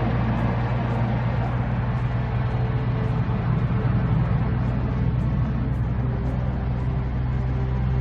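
Steady low rumble of a car driving, heard from inside the cabin as dashcam road and engine noise.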